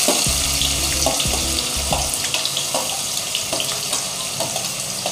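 Chopped onions frying in hot oil in a kadhai, a steady sizzle with small crackles as they are tipped in.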